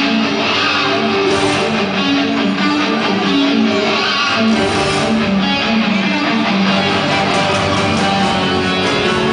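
Music with strummed guitar, the soundtrack the Osborne Christmas light display is set to, played over loudspeakers.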